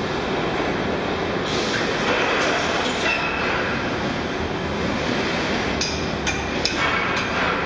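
Wheeled magnetic floor sweeper rolling with a steady rumble while small metal scraps clink onto its magnet. The clinks come in two scattered clusters, a few in the first three seconds and several more near the end.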